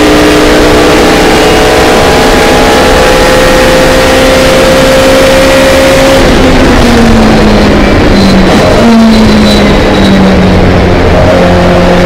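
1964 Hillman Imp race car's rear-mounted inline-four engine heard from inside the cabin under full throttle, its pitch slowly climbing. About six seconds in, the pitch drops in several steps, with a brief rise in between, as the car brakes hard and changes down for a corner, then the engine runs steadily at lower revs.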